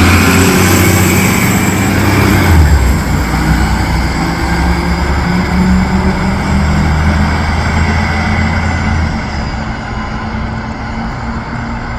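The Cummins ISL9 diesel engine of a 2013 Gillig Low Floor transit bus running under way, with a thin high whine above the engine hum. The engine eases off about nine seconds in and the sound grows quieter.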